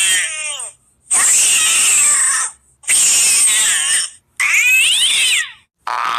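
A wild animal giving a run of loud, harsh screeching calls, four in a row of about a second each, some with pitch sliding downward. A different, steadier sound begins near the end.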